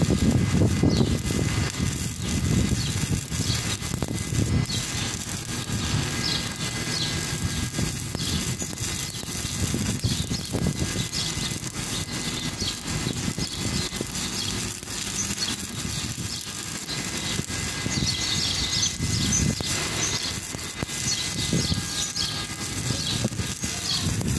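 Stick (shielded metal arc) welding arc crackling steadily as an electrode is run along a weld.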